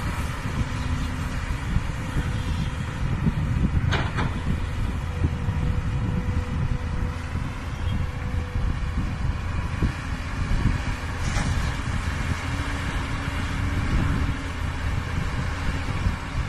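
Heavy diesel machinery, an excavator and a dump truck, running steadily, with two sharp knocks over the engine noise.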